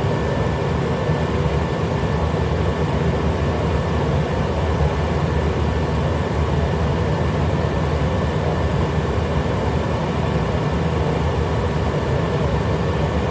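Steady interior noise of a jet aircraft in flight: airflow and engine rumble, heaviest in the low end, with a faint steady whine above it.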